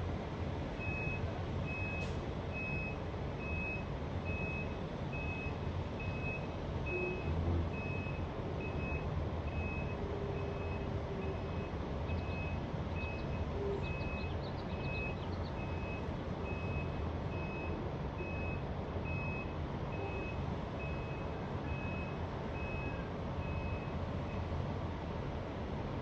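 A fire engine's reversing alarm beeping at one steady pitch, about once a second, while the truck backs and turns; it stops shortly before the end. Under it runs a steady low rumble.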